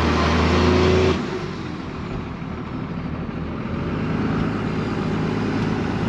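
2001 Dodge Ram 2500's 24-valve Cummins inline-six diesel running, heard from inside the cab. About a second in, the sound suddenly drops to a quieter engine hum that slowly builds and rises in pitch as the truck sets off on the road.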